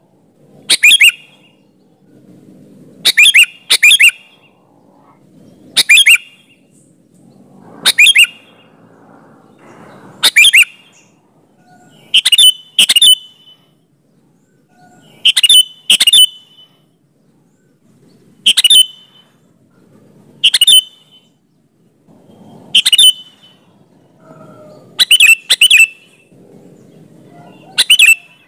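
Sooty-headed bulbul (kutilang) calling in lively form: short, loud, sharp notes repeated every one to three seconds, several coming in quick pairs.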